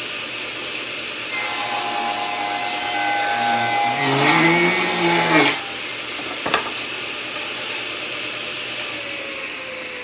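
Belt-driven table saw with a ripping blade ripping a 1x8 board lengthwise to trim off a knotted edge. The cut is loud for about four seconds, the motor's pitch bending under load near its end. The blade then runs free, with a single knock soon after the cut.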